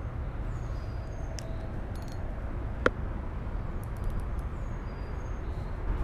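Outdoor ambience by a pond: a steady low rumble with faint bird chirps, and one sharp click about three seconds in.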